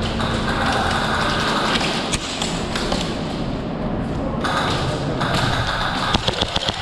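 Airsoft guns firing and BBs striking, with a quick string of sharp cracks about six seconds in, over a constant noisy din.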